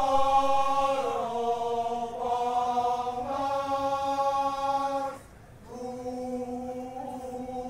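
A baleganjur troupe's voices chanting together in unison on long held notes that step slightly down and back up in pitch. The chant breaks off briefly about five seconds in and resumes.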